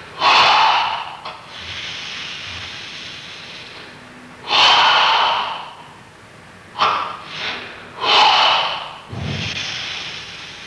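Forced, controlled breathing of a karateka performing Goju-ryu Sanchin kata: loud rushes of air through the nose and mouth, about a second each and coming a few seconds apart, with longer, quieter, steady hissing breaths between them, drawn out under full-body muscle tension.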